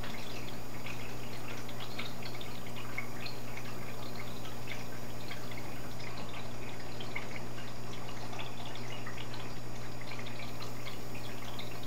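Aquarium water trickling and bubbling, many small drips and pops, over a steady low hum from the tank's pump.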